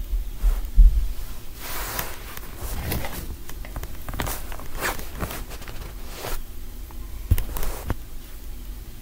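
Dull thumps, about a second in and again near the end, with rustling and clicking in between, close to the microphone.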